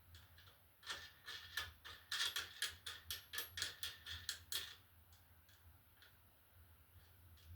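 Quick run of light metallic clicks and rattles as a radiator wheel bracket is handled and its wing nut is turned by hand on the bolt, busiest in the middle and dying away to a few faint ticks near the end.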